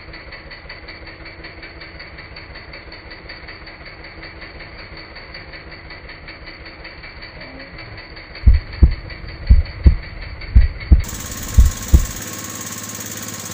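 A small boat engine running steadily with a fast, even knocking beat. About eight seconds in come some eight heavy, deep thumps over about four seconds, the loudest sounds, as the big marlin is hauled up and thrashes against the boat's hull.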